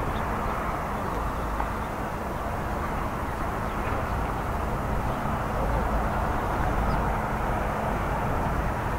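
Kawasaki T-4 jet trainer's twin turbofan engines heard at a distance as a steady rushing jet noise, swelling a little in the second half.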